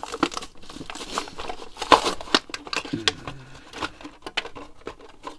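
Clear plastic blister packaging being pried open by hand: irregular crinkling and clicking, with one sharp crack about two seconds in.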